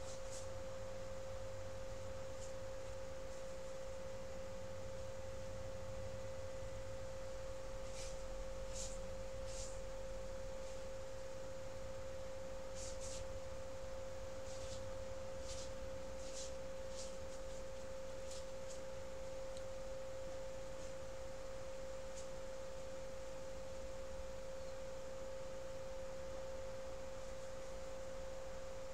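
A steady whine held at one pitch, with a fainter higher tone above it, like electrical interference on the recording. Faint, brief scratchy ticks come and go in the middle stretch.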